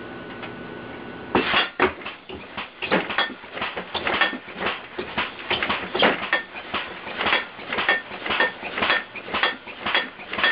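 Air-compressor-powered, computer-controlled alarm contraption going off: a rapid, irregular clanging and clattering of metal, several strikes a second, starting about a second and a half in.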